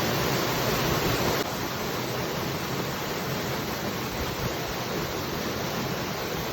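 Waterfall rushing, a steady noise of falling water; about a second and a half in it turns a little quieter and thinner and stays that way.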